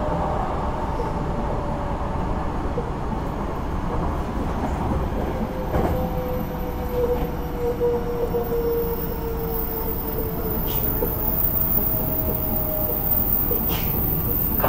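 Cabin running noise of a Hankyu 9000 series electric train: a steady rumble of wheels on rail, with a faint whine from the Toshiba IGBT VVVF inverter and traction motors that drifts slightly lower in pitch.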